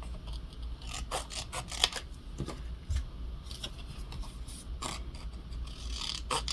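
Paper scraps being handled and sorted by hand, with scattered crinkles, rustles and light taps.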